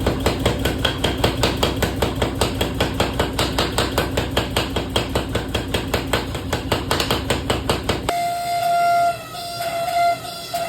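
Power hammer pounding metal in a fast, even run of blows, about four to five a second, which stops about eight seconds in. A steady high tone with a few small changes in pitch follows.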